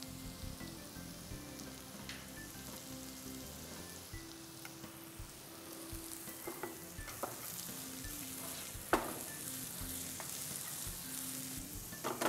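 Onions and capsicum with spices frying in a pan on a gas stove: a faint sizzle that grows from about halfway, with a few clicks of utensils, the sharpest about nine seconds in. Near the end the sizzle suddenly gets louder and crackling.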